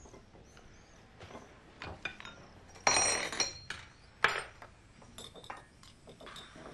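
Cutlery clinking and scraping on plates at a meal. About three seconds in there is a louder clatter of dishes with a ringing tone, and a second later a single sharp clink.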